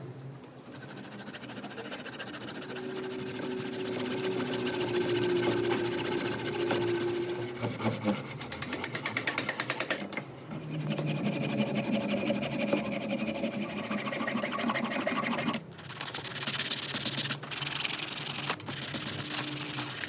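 Rubbing and scraping on wood, like sanding, in separate stretches with abrupt cuts. About halfway through comes a brief fast, even rattle of loud strokes.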